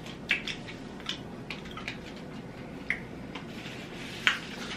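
A person chewing a bite of chocolate, coffee and caramel candy bar: a handful of short wet mouth clicks and smacks over quiet room tone, the loudest about four seconds in.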